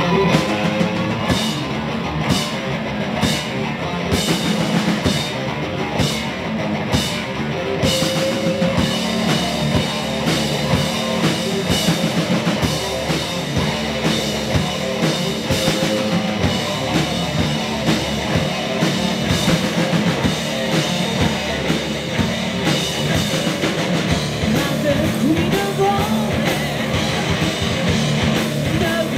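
Live stoner rock band playing an instrumental passage with distorted electric guitar, bass and a drum kit; the cymbals strike on a steady beat in the first several seconds.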